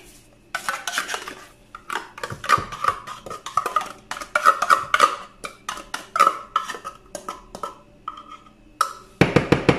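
Metal spoon scraping and knocking inside a tin of canned cream, scooping the last of the cream out: an irregular run of scrapes and clicks with a ringing tinny note, quickening near the end.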